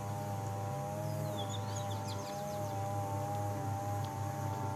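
Soft, steady background music of sustained held tones over a low pulsing hum. A bird gives a short high chirping trill about a second and a half in.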